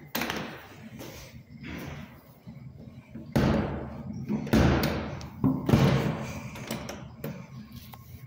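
Stainless steel toilet stall door being unlatched and pushed open: latch clicks, then three loud metallic knocks with a short ring, about a second apart in the middle, as the door panel and latch bang.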